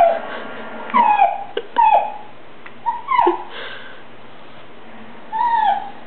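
Border collie whining and yelping in excitement, about five short high cries whose pitch arches and then falls.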